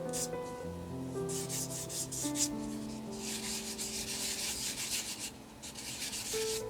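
Hand sanding or rubbing on a small resin 3D-printed miniature, in short scratchy strokes and then a longer stretch of rubbing, over soft background piano music.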